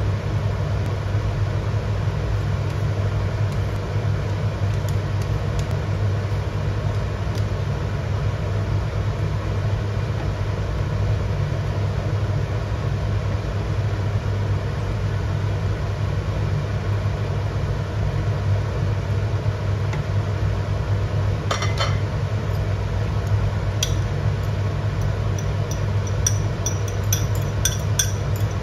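Steady low hum of a kitchen extractor fan running over a gas hob while a pot simmers. A few clinks of a utensil against the pan and dishes come in about two-thirds through and again near the end.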